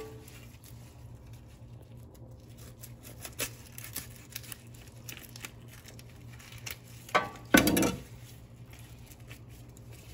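Knife cutting through a fish on a board, small scraping and handling noises, with a louder rough cut about seven to eight seconds in.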